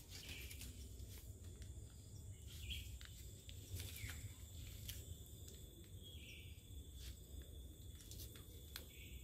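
Faint swamp-forest ambience: a steady high insect drone, with a bird's short call repeating four or five times, about every two to three seconds, and a few faint clicks.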